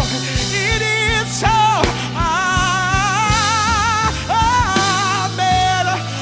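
Worship band playing, with a singer holding long notes with vibrato and sliding between them over a steady drum beat and sustained bass.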